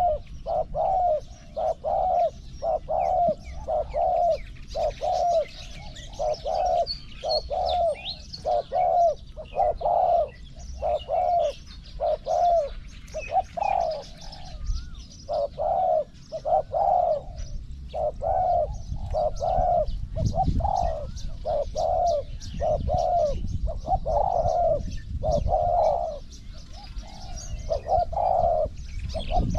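Spotted doves cooing over and over, about two notes a second in short repeated phrases, the call of a decoy-trapping session with a caged decoy and a wild dove at the trap. Faint chirps of small birds sound higher up.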